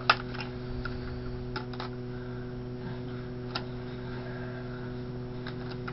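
Scattered sharp metal taps of a hammer on a punch, driving out a stiff takedown pin that holds a new AR-15's lower receiver to the upper. The first tap, just after the start, is the loudest, and the rest are lighter and spaced out, over a steady low hum.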